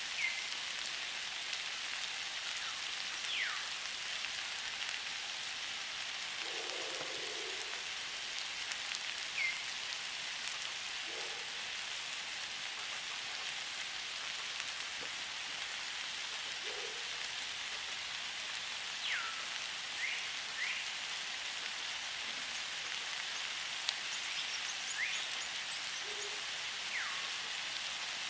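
Steady hiss, with several short falling whistles scattered through it.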